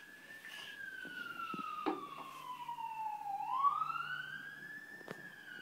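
Faint emergency-vehicle siren wailing, its pitch falling slowly for about three seconds, rising again about three and a half seconds in, then starting to fall. A few light taps come in over it.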